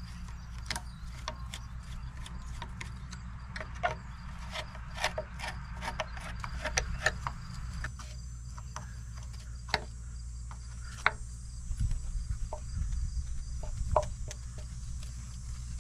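Hand tools clicking and scraping on the Marvel-Schebler carburetor's fittings as it is taken loose from the engine: irregular metallic ticks and small knocks, several a second for a while, then sparser.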